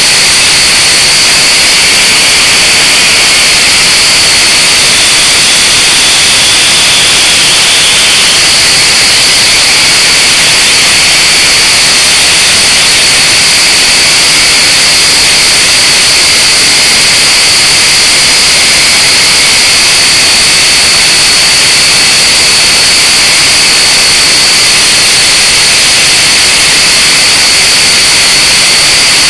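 Blade 180QX micro quadcopter's motors and propellers running steadily, heard through its own onboard camera as a loud, high-pitched whine over a hiss.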